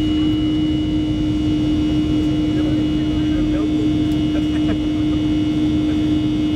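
Boeing 737-300's CFM56-3 turbofan engines heard from inside the cabin at climb power: a steady, loud roar with a strong constant hum and a fainter high whine.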